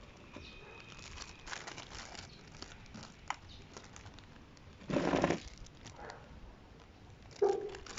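Clear plastic bags crinkling as they are handled, bags of spare drone propellers and propeller guards, in irregular rustles with a louder crinkle about five seconds in.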